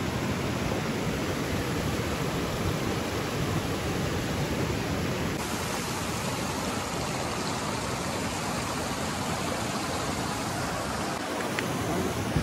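Steady rush of a small stream cascading over rocks.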